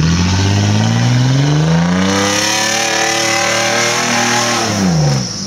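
Off-road 4x4's engine revving hard: the pitch climbs over the first couple of seconds, holds at high revs with a strong hiss over it, then drops back near the end.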